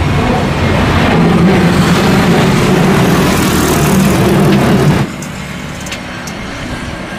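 Jet airliner engines at takeoff power as the plane climbs away: a loud, steady rumble. About five seconds in the sound cuts suddenly to a quieter, steady engine noise from an airliner on landing approach.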